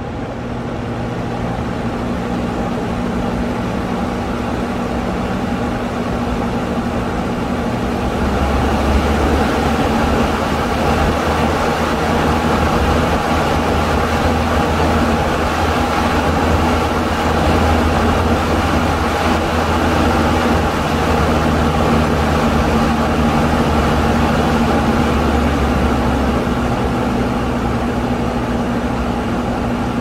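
Electric fan's motor and blades running, with a steady low hum, their speed set by a home-built TRIAC phase-control speed controller. The sound grows louder over the first several seconds as the speed comes up, holds steady, and eases off a little near the end.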